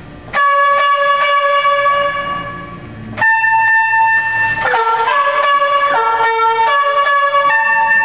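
Vintage musical car horn playing a loud tune. The first note is held for about two and a half seconds, a higher note follows, and then comes a run of shorter notes changing pitch.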